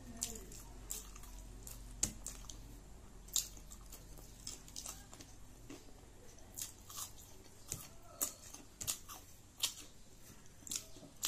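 Close-up mouth sounds of a person eating: chewing with irregular wet smacks and clicks.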